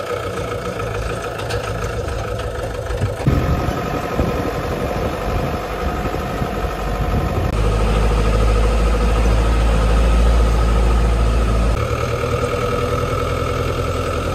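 Truck engine running steadily as it drives along a rough dirt track, heard from the open back of the truck, with a deep low rumble that is stronger for a few seconds after the middle.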